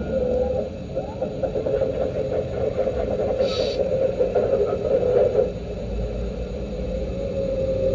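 Electronic sound kit of an RC Cat 374F hydraulic excavator playing a simulated diesel engine. The engine sound turns busier and unsteady while the boom and bucket move, with a short higher ringing sound about three and a half seconds in. It settles back to a steady drone near the end.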